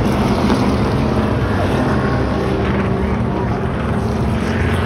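NASCAR stock cars' V8 engines running on the oval, a loud steady drone with no break.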